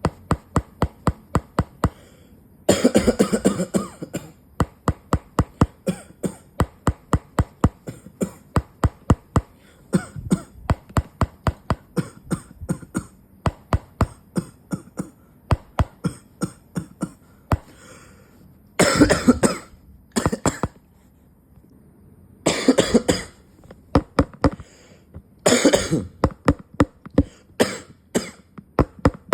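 A person coughing in a long run of short, sharp coughs at about three a second, broken a few times by longer, harsher coughing fits.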